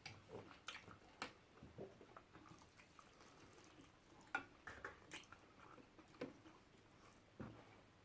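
Faint eating sounds of peanut pepper soup and fufu: wet chewing and lip smacks, heard as irregular short clicks every second or so against a quiet room.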